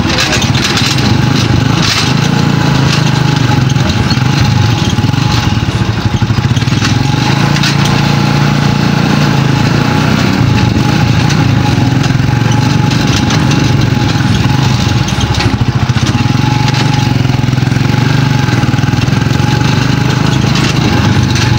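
Motorcycle-with-sidecar (tricycle) engine running steadily and loudly, with no breaks.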